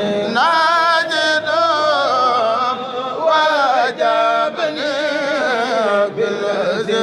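A male voice chanting a Mouride xassida (Sufi devotional poem), the melody bending in quick, wavering ornamental runs with short breaks between phrases.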